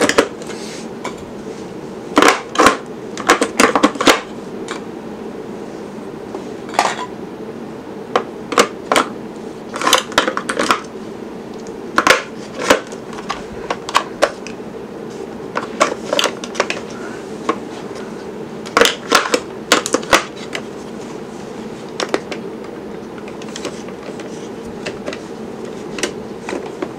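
Batteries being loaded into the battery compartment of a Sony Mega Watchman portable TV: irregular plastic clicks and knocks as the cells are pressed in and the set is handled, over a steady low hum.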